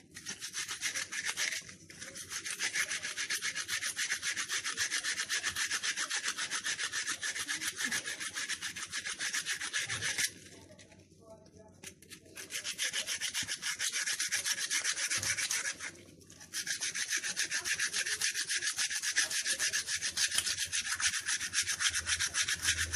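Onion being grated on a hand grater: quick, even rasping strokes of the vegetable against the grater's teeth. The grating stops for a couple of seconds about halfway through and pauses briefly again a few seconds later.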